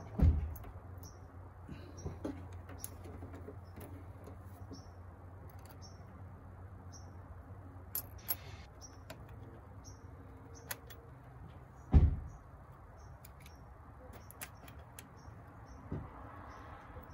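Small metal clicks and taps of a bolt-on battery terminal clamp and cable end being handled and fitted by hand, with a dull thump at the start and a louder one about twelve seconds in, over a steady low hum.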